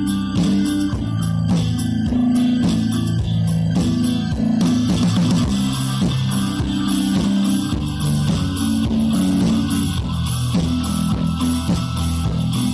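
Background music led by guitar, with plucked strings over a steady bass line.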